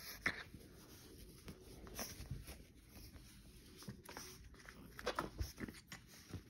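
Faint scattered clicks and rustles of a black pug being rubbed and handled on a floor, with a cluster of clicks about five seconds in.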